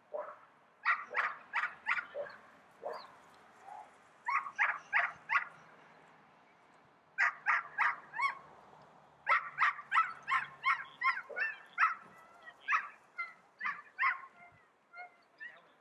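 A dog barking in quick runs of four or five sharp barks, several runs in a row, becoming nearly continuous in the second half.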